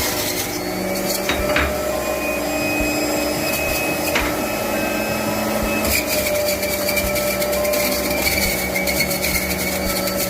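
Electric kitchen juicing appliance's motor running steadily while fruit and vegetables are processed, with a few sharp knocks from the produce against the machine.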